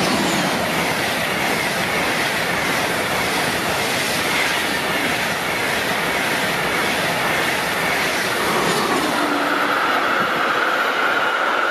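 ICE high-speed train passing close at speed: a steady loud rush of wheels on rails and air, with a freight train of car-transporter wagons running by on the neighbouring track. About nine seconds in, a steady high-pitched tone joins the noise.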